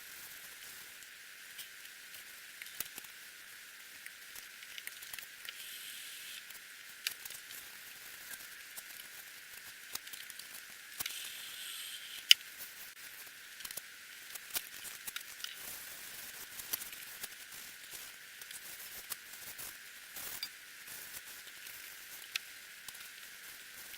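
Hand cleaning work on a bench mill: scattered light clicks, taps and short rustles of wiping and scrubbing off packing grease, over a steady hiss.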